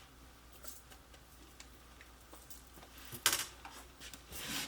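Faint small clicks and handling noises from the unboxed accessories and packaging being moved by hand, with one short, louder rustle a little over three seconds in.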